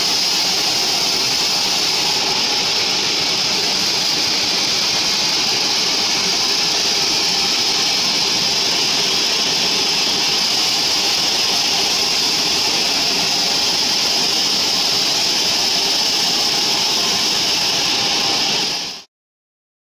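Large sawmill bandsaw running and resawing a mahogany beam: a loud, steady machine noise with a high whine from the blade, which cuts off suddenly near the end.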